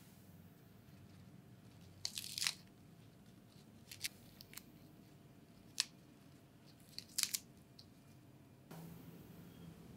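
Crisp, fresh Boston lettuce leaves torn apart by hand, a handful of short crunchy rips spaced a second or so apart.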